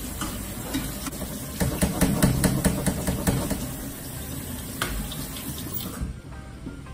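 Cold tap water running into a sink over canned black beans being rinsed in a strainer, with a run of knocks and rattles about two seconds in. The running water stops near the end.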